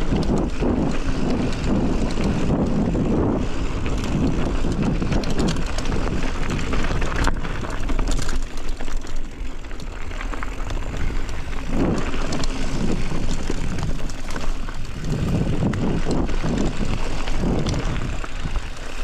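Wind rushing and buffeting over the microphone of a moving bicycle, with uneven rumbling from the ride.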